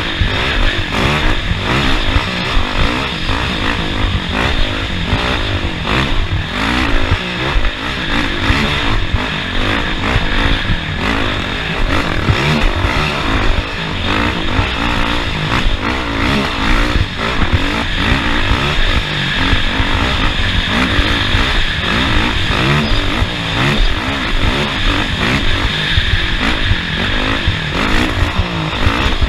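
Off-road racing vehicle's engine at full work over a dirt track, its revs rising and falling continuously, with frequent short knocks and rattles throughout.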